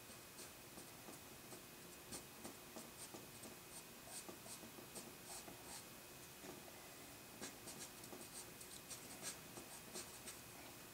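Faint, short scratchy strokes of a pencil-type eraser on drawing paper, lifting highlights out of charcoal-shaded hair. The strokes come in quick runs of several a second, with a short pause in the middle.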